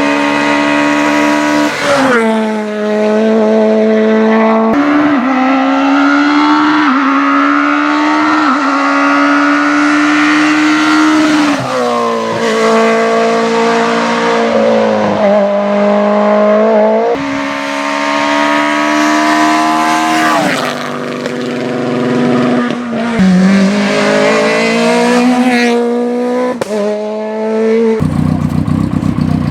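Rally car engine driven hard at high revs, its pitch climbing and then dropping sharply at each gear change, over and over. Near the end it cuts to a lower, rougher, steady engine note.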